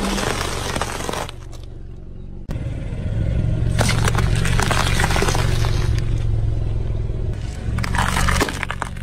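A car tyre rolling slowly over food and crushing it, first a bag of crunchy orange snack puffs and then pears, with crackling and squashing over the car's engine running low and steady. The sound changes abruptly twice as one crush cuts to the next.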